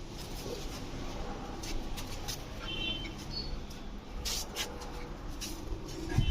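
Young Doberman puppies whimpering in short, high squeaks a couple of times about three seconds in, with a few sharp clicks a little later.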